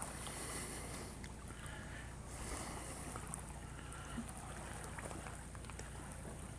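Faint, steady low hum of a distant motor under quiet outdoor background.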